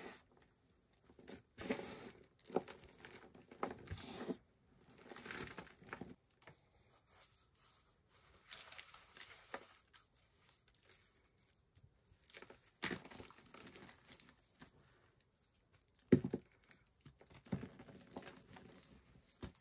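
Reformed gym chalk crumbled and squeezed by hand, with soft gritty crunches and powder sifting through the fingers in irregular bursts. One sharper, louder crunch comes late on.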